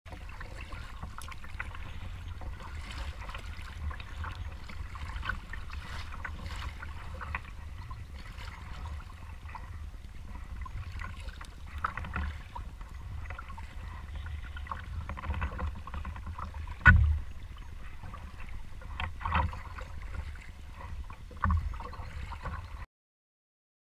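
Paddling a Tsunami 125 touring kayak on a lake: the paddle dipping and dripping water in soft strokes over a steady low rumble. A few sharp knocks come in the last third, the loudest about two-thirds of the way through, and the sound cuts off suddenly near the end.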